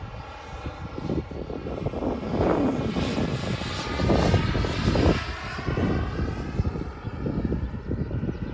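Single Jetsmunt 250 turbine of a radio-controlled F-22 Raptor model jet in flight: a steady jet rush with a thin turbine whine that waves gently in pitch as the model passes.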